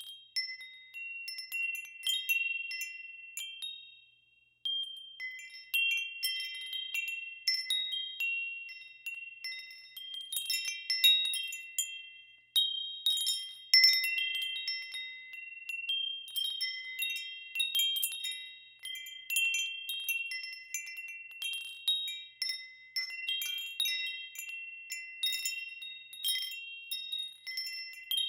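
Wind chimes ringing, struck irregularly in clusters: high, bell-like tones that overlap and fade, briefly falling almost silent about four seconds in.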